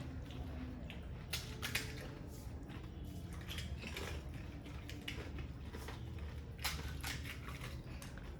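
Fuchka (panipuri) being eaten fast: irregular crunches of the crisp puri shells and wet chewing, heard as scattered short crackles.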